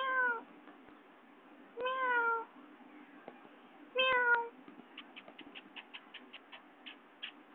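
Domestic cat meowing three times, each meow about half a second long and falling slightly in pitch, spaced about two seconds apart. A run of faint, quick ticks follows near the end.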